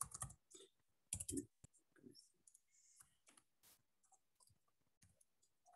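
Faint, irregular clicking of keys on a computer keyboard during typing, with a few louder keystrokes near the start and about a second in.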